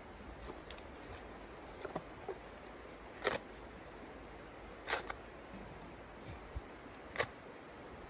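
Sharp snaps and clicks of small sticks being handled and set inside the firebox of a small steel wood stove, three louder ones spaced a second or two apart, over a steady hiss.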